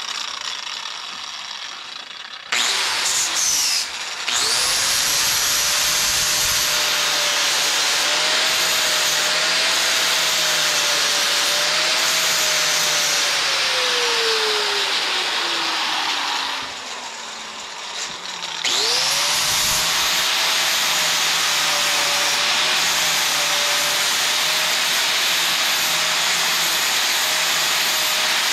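Angle grinder grinding the welded repair on an old steel bicycle frame. The motor starts with a rising whine about four seconds in and runs with a rough grinding hiss, winds down with a falling whine in the middle, then starts again and runs on.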